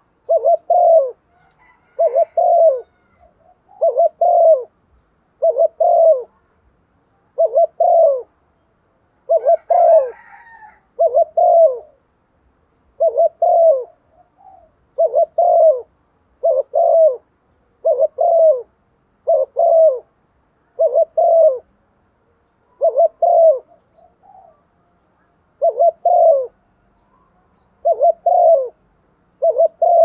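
Spotted dove cooing: a steady series of short low coos in pairs, one pair about every one and a half to two seconds, with a few longer gaps. It is the calling of a caged decoy dove, used to rouse wild cock doves.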